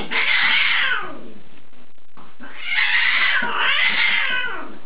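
A cat yowling (caterwauling) at another cat facing it across a glass door: one long drawn-out call at the start, then two more back to back about halfway through, each sliding down in pitch at the end.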